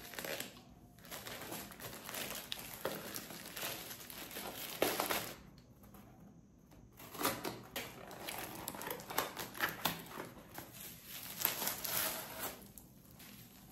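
Packaging crinkling and rustling in irregular bursts as an umbrella is unwrapped, with a quieter lull about halfway through.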